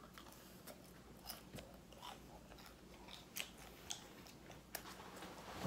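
Close-up eating sounds: biting into and chewing crispy fried food, likely an onion ring, heard as soft irregular crunches and mouth clicks, with a louder click near the end.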